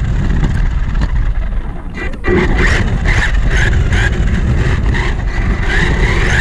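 Losi Mini-B RC buggy heard from a camera mounted on it while driving: a heavy low rumble and rattle from the ground and chassis, with the electric motor's whine cutting in and out and rising near the end as it speeds up.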